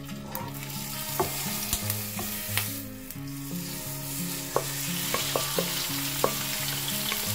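Raw chicken strips sizzling as they drop into hot olive oil in a nonstick frying pan, the sizzle growing louder a few seconds in as more chicken goes in. A wooden spatula scrapes and clicks against the metal bowl and the pan.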